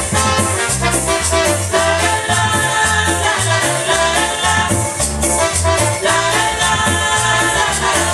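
Latin dance music played over a DJ's party sound system: an instrumental passage with a steady beat, a repeating bass line and held melody lines.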